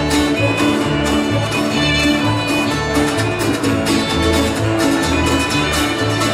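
Bluegrass band playing live: a fiddle carries the melody over strummed acoustic guitars and an upright bass keeping a steady beat of about two notes a second.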